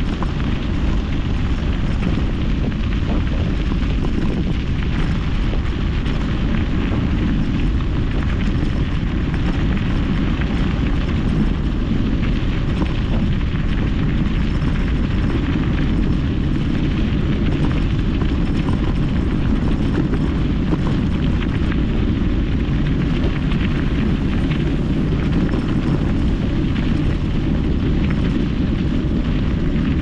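Steady wind rumble on the microphone of a moving mountain bike, with a fainter hiss of tyres and air above it.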